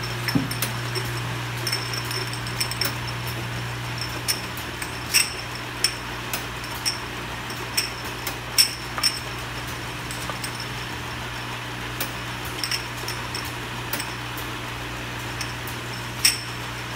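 Tablet/capsule counting machine running: a steady low motor hum with irregular sharp glassy clinks from the glass bottles being moved along the conveyor and filled.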